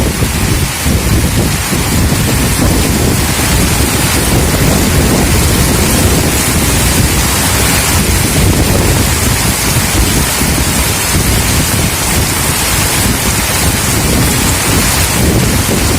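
Strong gale-force wind buffeting the microphone, a loud continuous rushing with heavy low rumble and a steady hiss, with no let-up.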